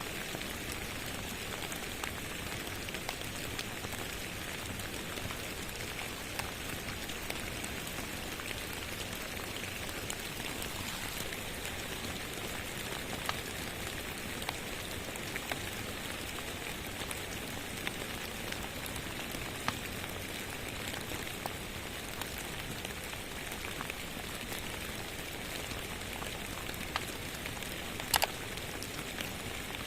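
Steady rain mixed with scattered crackles and pops of a wood fire in a fireplace, with one louder pop near the end.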